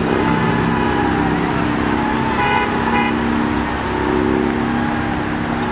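Road traffic passing through an intersection, with a steady engine hum and two short car horn toots about two and a half seconds in.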